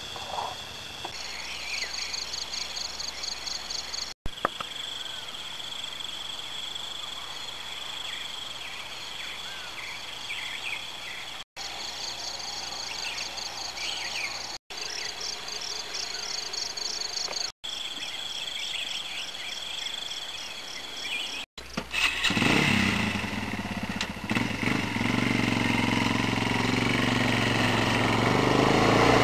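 A steady chorus of high, pulsing calls, broken by several short cuts; then, about three-quarters of the way through, a motorcycle engine comes in running and gets louder toward the end.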